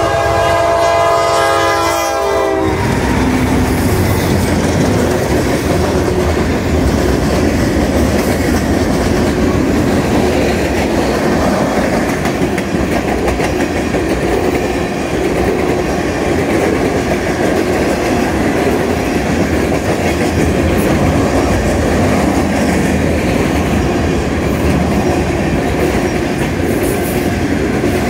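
Kansas City Southern GE AC44CW locomotive's horn sounding a chord that cuts off about two and a half seconds in. Then a manifest freight train rolls steadily past: the locomotives, then tank cars and covered hoppers, their wheels clacking over the rail joints.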